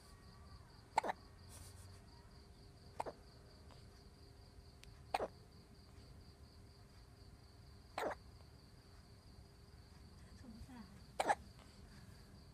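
A newborn baby hiccuping: five short, sharp hiccups a few seconds apart.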